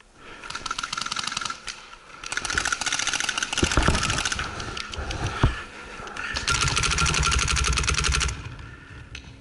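Paintball marker firing in three long volleys of rapid clicking shots, with a few single sharp thuds between them.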